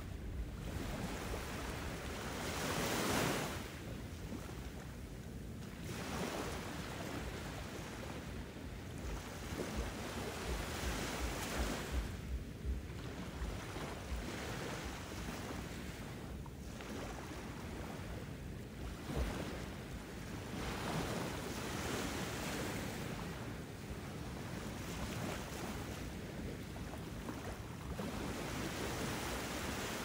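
Ocean surf: a steady wash of waves that swells and falls back every four to six seconds, over a low wind rumble.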